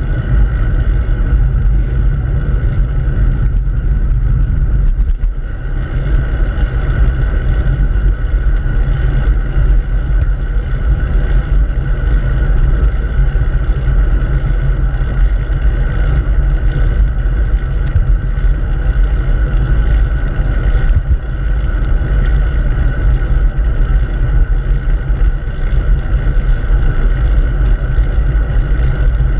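Wind buffeting the microphone of a handlebar-mounted camera on a moving bicycle: a loud, steady low rumble.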